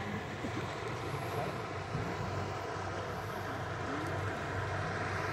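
Steady low drone of a motor boat's engine out on the river, over an even wash of outdoor noise.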